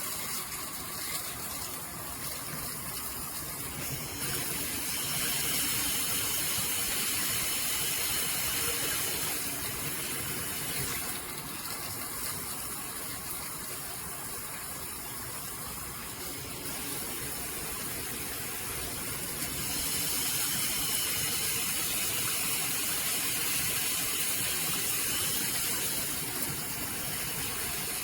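Shower spray running steadily, water hissing and splashing, growing louder about 4 seconds in, easing around the middle, and swelling again later.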